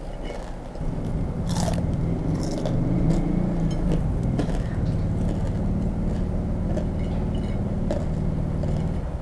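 Close-up chewing of crisp fried grasshoppers, with several sharp crunches, over a low steady rumble that comes in about a second in and stops near the end.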